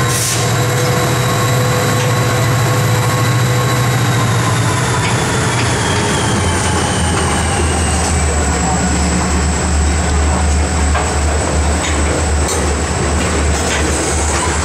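Freight cars rolling past at close range, with a steady high wheel squeal that slowly falls in pitch. Beneath it runs the low drone of the diesel locomotives, which drops lower about six seconds in.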